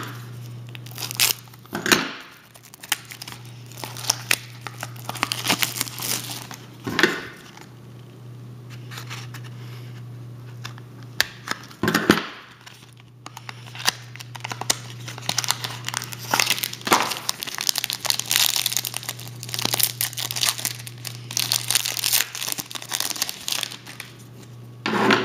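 Foil trading-card pack wrapper crinkling and tearing as a pack is opened, irregular rustling with a few louder crackles.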